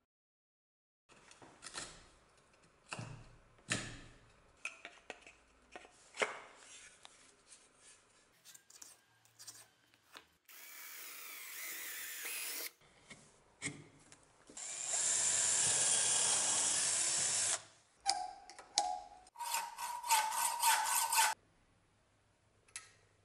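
A cordless drill boring through an ash-wood cleaver handle in two runs of a few seconds each, among knocks and clicks of handling at the workbench. A shorter, pulsing tool run follows near the end.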